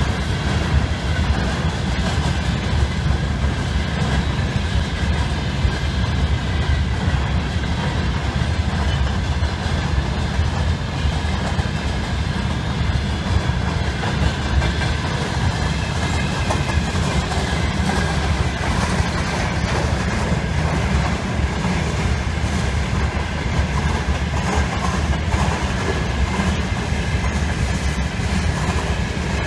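Freight train of open gondola wagons rolling past, a steady, unbroken rumble and rattle of steel wheels on the rails.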